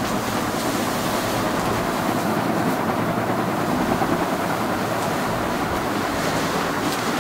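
A steady rushing noise with no change or distinct events.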